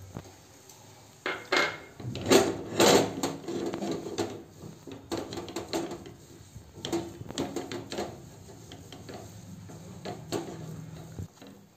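Steel spoon scraping and knocking against a nonstick pan while stirring and breaking up a crumbly milk-solids mixture, in irregular strokes. It starts about a second in, is loudest a couple of seconds in, and stops just before the end.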